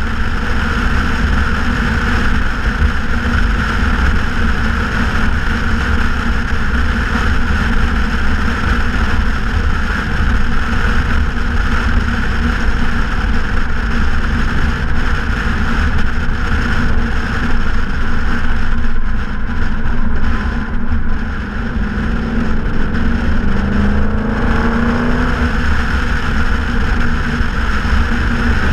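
2014 Ford Mustang GT's 5.0-litre V8 running through a straight-piped exhaust at highway cruise, a steady, loud, low drone under road noise. About three-quarters of the way through it eases off briefly, then rises in pitch over a few seconds as the revs climb.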